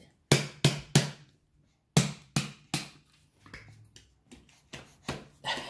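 Sharp knocks on a hard surface: a quick run of three near the start, another run of three about two seconds in, then lighter scattered taps.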